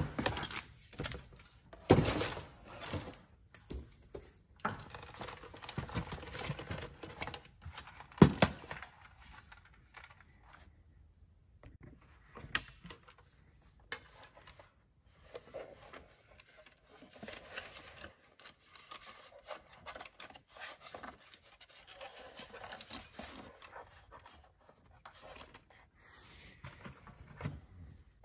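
Cardboard packaging scraping and rubbing against a hard plastic toy car as it is pulled free and handled, with a few sharp knocks, the loudest about two and eight seconds in. Softer plastic clicks and rubbing follow as the car is turned over and set down.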